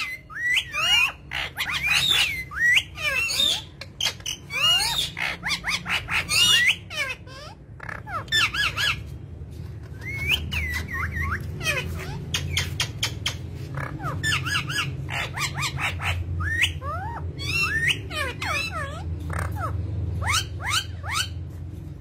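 Pet parrot calling in a quick string of short, sharp squawks and chirps that sweep up and down in pitch, coming in clusters with brief gaps. A low steady hum runs underneath, stronger in the second half.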